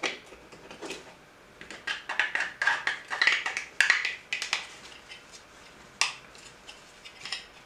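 3D-printed plastic rods being pushed into tight-fitting holes in a 3D-printed plastic mold: a run of scraping and clicking of hard plastic on plastic, with a single sharp click about six seconds in.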